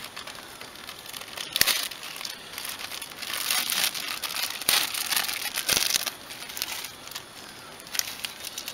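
Thin clear plastic bag crinkling and crackling as it is crumpled and twisted by hand into a cord. The crinkling comes in irregular clusters and is loudest in the middle.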